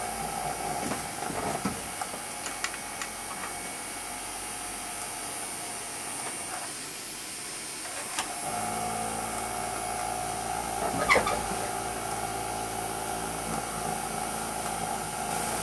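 Small electric motor running with a steady hum and whine. It fades about seven seconds in and returns stronger a second or so later. A few light clicks sound early on, and a single knock comes near eleven seconds.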